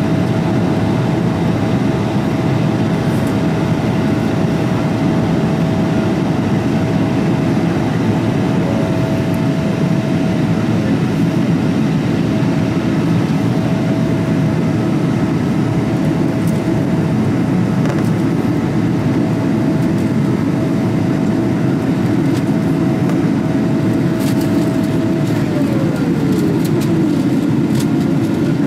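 Cabin noise of a Boeing 777-300ER climbing after take-off: the steady rumble of its GE90-115B engines and the airflow past the fuselage. A thin whining tone runs over it and glides down in pitch near the end.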